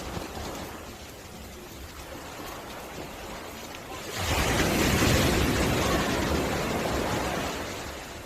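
Ocean waves on a beach: a low wash of surf, then a wave breaking about four seconds in, its rush slowly fading.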